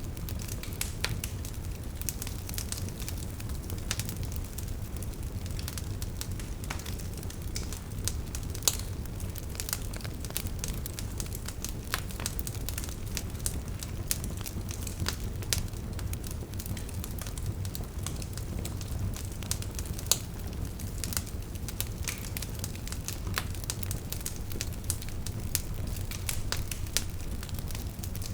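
Wood fire burning in a fireplace: logs crackling and popping in many sharp irregular snaps over a steady low rumble of the flames.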